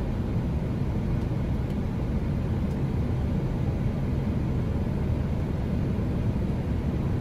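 Steady low cockpit noise of an Airbus A321 on short final approach: airflow over the flight deck and engine noise, holding even throughout.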